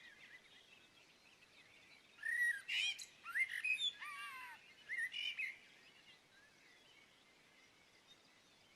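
A songbird singing a run of short, varied, quickly rising and falling phrases for a few seconds, starting about two seconds in, then fading to faint background.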